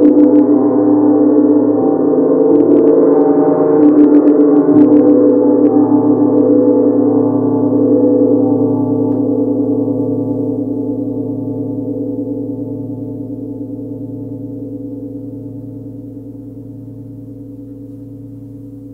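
Large Tibetan gong struck softly with a padded mallet several times in the first few seconds. It then rings on with a deep, slowly pulsing hum that gradually dies away.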